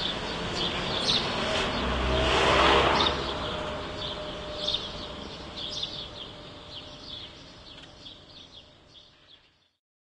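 Outdoor street ambience: a vehicle passes by, loudest about two to three seconds in, while birds chirp. The sound then fades away to silence near the end.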